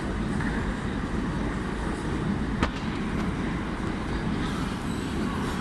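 City street noise in heavy rain: a steady, dense hiss and rumble of rain and traffic, with one sharp click about two and a half seconds in.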